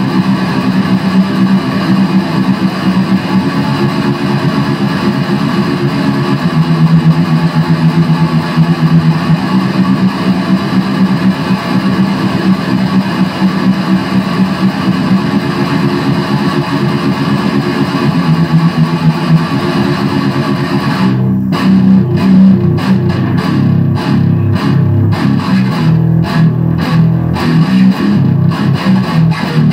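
Heavily distorted electric guitar, an Epiphone SG Special through a Line 6 Spider III amp, played loud in an improvised heavy-metal style. Sustained low notes ring for most of the time, then about two-thirds of the way in the playing turns into a choppy, stop-start riff.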